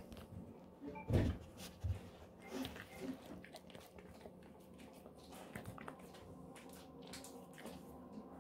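Golden retriever chewing and crunching a dried pig-ear treat. A few loud crunches come in the first three seconds, the loudest about a second in, followed by fainter scattered clicks of chewing.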